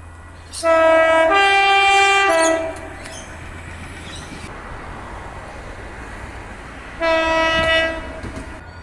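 Locomotive air horn sounding a chord blast of about two seconds, its notes shifting up partway through and back down before it stops. A steady train rumble follows, with a second, shorter horn blast about seven seconds in.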